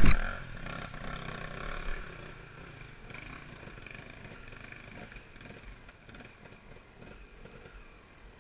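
Dirt-bike engine running, louder over the first two seconds with a brief rise, then settling to a steady, quieter idle.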